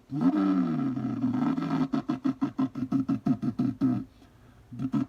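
A man's voice imitating a Honda Civic pulling away, made into a 5-gallon bucket: an engine-like note that rises, dips and climbs again, then a rapid stuttering pulse of about seven beats a second for some two seconds. After a short break the note starts up again near the end.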